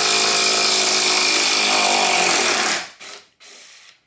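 Makita CXT 10.8V compact impact driver hammering in reverse, backing a hot screw out. It runs steadily and stops about two and a half seconds in, followed by a couple of brief handling noises.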